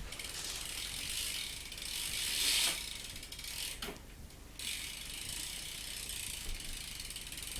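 BMX rear hub's freewheel pawls ratcheting as the wheel coasts, a rapid ticking that runs together into a buzz. It swells briefly about two and a half seconds in and stops for half a second about four seconds in.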